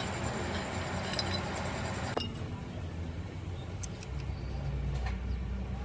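A few light clinks over a low, steady hum.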